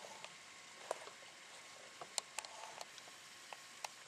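Faint rustling with a few scattered light clicks and ticks, irregularly spaced, over quiet outdoor background.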